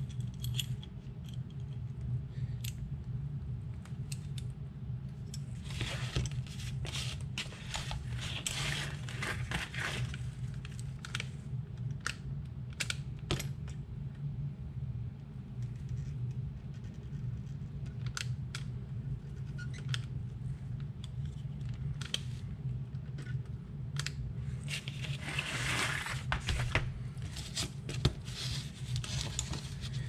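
Scattered clicks, scrapes and small knocks of hand tools being handled: a steel C-clamp screwed around a small plastic XT90 connector, and a soldering gun and solder spool picked up and set down. A steady low hum runs underneath.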